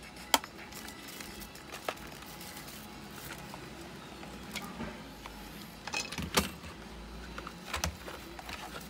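Hard plastic parts of a replica M50 gas mask being handled, with its filter canister worked on and off the side port: scattered sharp clicks and knocks, the loudest just after the start, another about two seconds in, and a cluster about six seconds in.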